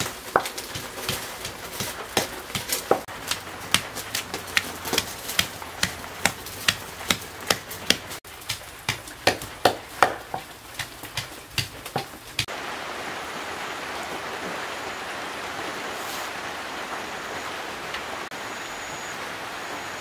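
Pestle pounding in a heavy mortar: sharp strikes roughly twice a second, stopping abruptly about twelve seconds in. After that, a steady hiss.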